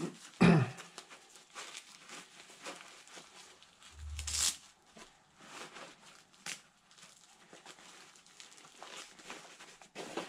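Rustling and handling of gear and fabric in a nylon backpack, irregular small scrapes and crinkles, with a loud sudden noise about half a second in and another louder burst around four seconds in.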